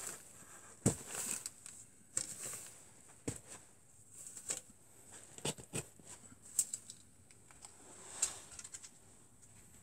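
Wooden arrows being pulled out of a foam archery target, the shafts scraping out of the foam. About eight sharp clicks and knocks come at uneven intervals as the shafts knock together in the hand.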